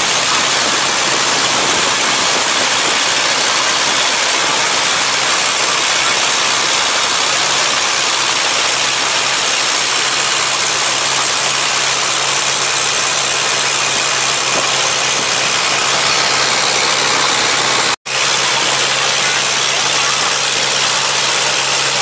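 An engine running steadily at an even speed, loud and unchanging, with a momentary cut-out about eighteen seconds in.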